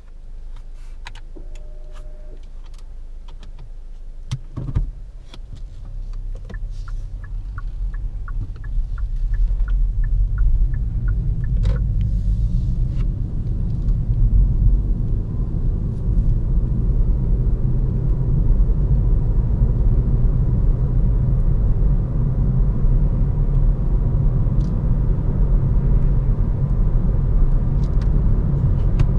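Cabin sound of a Hyundai i30 Fastback N-Line with its 1.4 T-GDi turbo four-cylinder and dual-clutch gearbox: quiet at first, with a short tone and a thump, then indicator ticking for a few seconds. Engine and road rumble then build as the car pulls away and accelerates to about 75 km/h.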